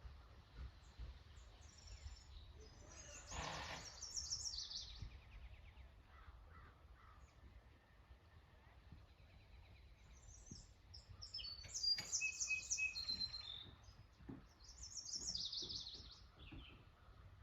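Songbirds singing outdoors: three high, quick runs of notes that drop in pitch, about three seconds in, around eleven seconds and again near fifteen seconds. A steady low rumble of wind or distant surf runs underneath.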